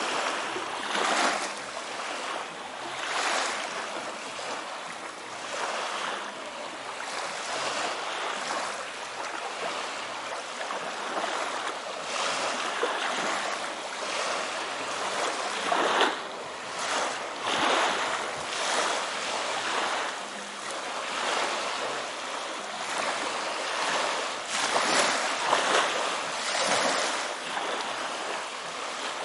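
Small sea waves lapping and splashing against the shore, in irregular surges a second or two apart.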